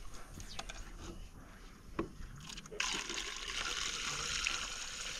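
Water pouring from a clear plastic jug in a steady stream, starting suddenly about three seconds in. A single sharp knock of the plastic comes just before it.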